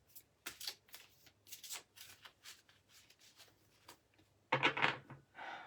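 A deck of oracle cards being shuffled by hand: a quick, uneven run of soft slaps and rustles lasting about four seconds. A brief murmur of voice follows near the end.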